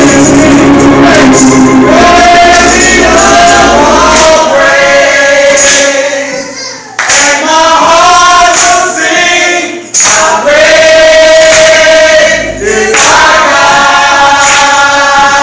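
Gospel choir singing with a steady beat of sharp percussive hits; the voices break off briefly about seven and ten seconds in.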